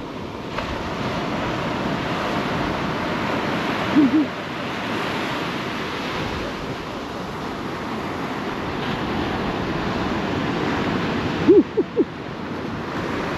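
Small surf breaking and washing up a sandy beach, a steady rush that swells and eases. Two short pitched calls cut through, one about four seconds in and a louder cluster near the end.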